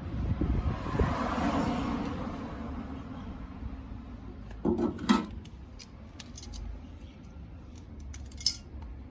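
Metal tools and parts being handled during car maintenance: a rushing swell of noise in the first few seconds, two heavier knocks about five seconds in, then light metallic clinks and taps, with a short ringing clink near the end.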